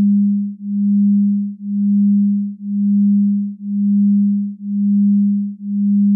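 A single low, pure electronic tone that swells and fades in even pulses about once a second.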